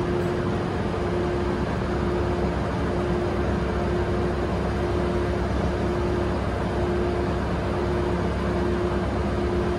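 Coaster commuter train standing at the platform with its diesel locomotive idling: a steady rumble with a constant hum.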